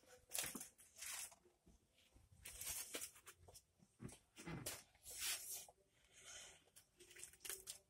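Very faint, scattered rustling and scraping handling noises, a few short scuffs at a time.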